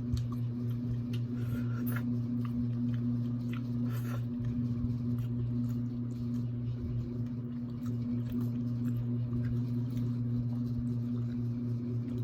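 Close-up eating sounds: chewing and biting into seafood, with small clicks and cracks scattered throughout, over a steady low hum.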